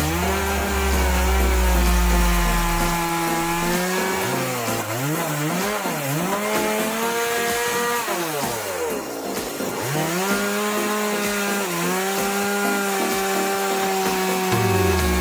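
Mini chainsaw running at high revs as it saws through wood. Its pitch sags and wavers twice under the load of the cut, then recovers.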